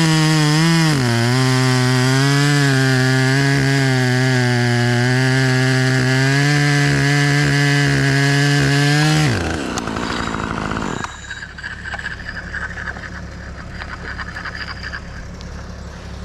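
Husqvarna two-stroke chainsaw at full throttle cutting through wood, its pitch dipping as it bites about a second in and then held steady. About nine seconds in the throttle is released and the pitch falls away, leaving a much quieter low engine sound.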